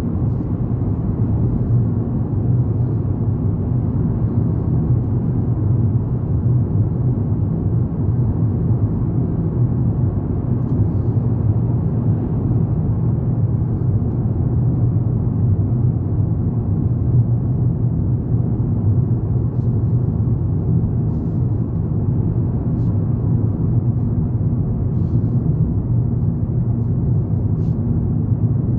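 Steady low rumble of a car driving through a road tunnel, heard from inside the cabin: engine and tyre noise with an even low hum.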